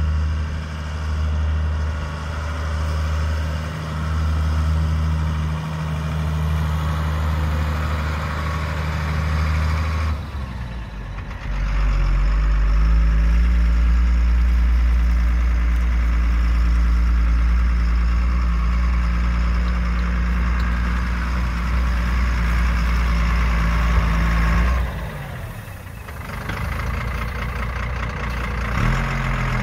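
Engine of a 1991 Chevrolet Kodiak tandem-axle dump truck running as the truck drives across a field: a steady engine note that gets louder about twelve seconds in as the truck comes close, drops off sharply about twenty-five seconds in as it stops, and rises in pitch near the end.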